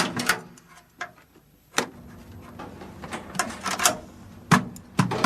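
A run of sharp, irregular knocks and clatters, thickest about three to four seconds in, like something mechanical being worked or forced.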